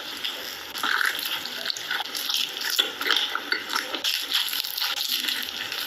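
Close-up eating sounds: wet chewing with irregular crisp crackles, as of biting into the breaded skin of a spicy fried chicken drumstick.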